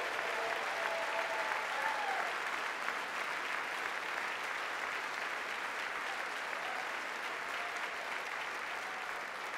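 A crowd of lawmakers applauding steadily, slowly fading toward the end.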